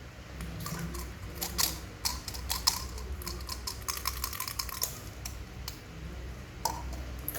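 Plastic candy packaging being worked open by hand, a run of irregular crinkling clicks and crackles.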